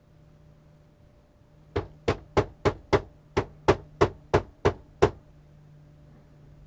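Eleven sharp knocks, about three a second, from light hand taps on the MIDI keyboard's case, done to shake a dirty wheel potentiometer into sending spurious MIDI messages.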